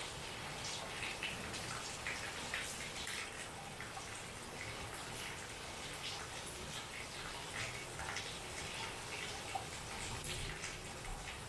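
Rain falling steadily, with close drops and drips landing irregularly over the even hiss of the downpour.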